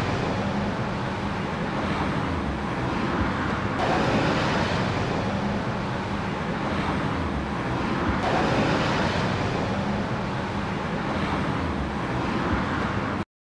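Steady outdoor road-traffic noise with wind on the microphone, shifting slightly twice and cutting off suddenly near the end.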